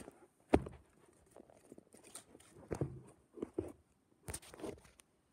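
Handling noise: the recording device being moved and bumped about, a string of irregular knocks and rustles, the loudest a sharp knock about half a second in.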